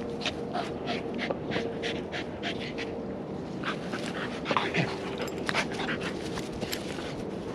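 Two dogs, a Staffordshire Bull Terrier and a cream-coloured playmate, play-wrestling with rapid heavy panting and quick breathy puffs, several a second, a little louder about halfway through.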